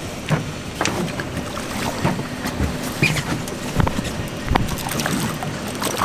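Water splashing with scattered, irregular knocks and clicks as a hooked seabass thrashes at the surface beside a boat's hull and is scooped into a landing net.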